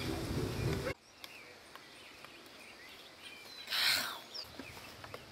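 Quiet outdoor ambience with faint, scattered bird chirps. A louder sound cuts off abruptly about a second in. A brief rustling noise near four seconds is the loudest moment after that.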